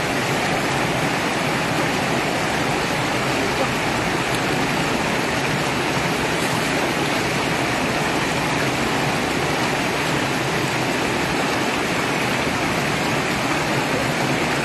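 Water rushing steadily over and between concrete blocks in a river channel, an even, unbroken roar.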